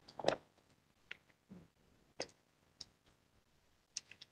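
A quiet pause with a few faint clicks scattered across it, about six in four seconds, and a short soft noise just after the start.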